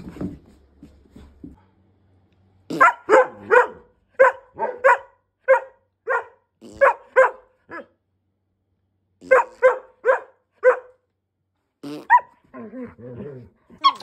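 Rough collies barking in short, high-pitched barks, in quick runs of two to five with short pauses between, followed by a brief growl near the end.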